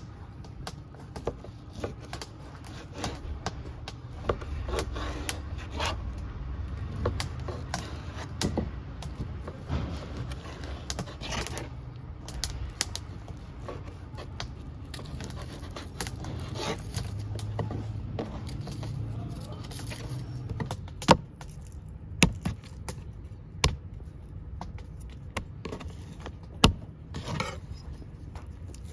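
Large kitchen knife cutting raw goat meat into chunks on a wooden cutting board: irregular knocks of the blade on the board, with a few louder single chops in the second half.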